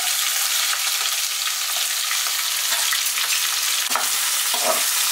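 Sliced onions sizzling in hot fat with whole spices in a non-stick kadhai, a steady hiss. A perforated steel spatula scrapes and stirs them a few times near the end.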